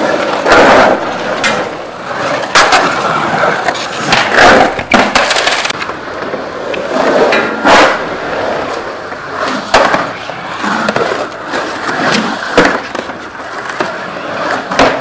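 Skateboard wheels rolling and carving across the bare concrete of an empty swimming pool, with several sharp knocks of the board along the way.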